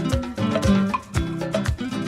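Upbeat instrumental background music with a steady beat and bass notes.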